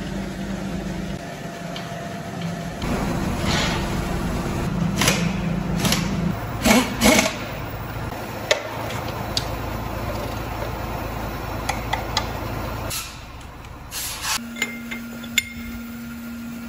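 Workshop noise: a steady low machine hum with a series of sharp metal clanks and knocks from work on a bare engine block. About thirteen seconds in the hum drops away, leaving a quieter steady tone.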